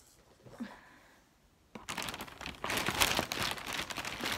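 A thin plastic shopping bag rustling and crinkling loudly as hands rummage inside it, starting about two seconds in after a quiet start.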